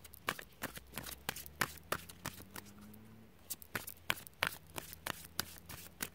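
Oracle cards being shuffled and handled by hand: irregular light clicks and flicks, a few each second.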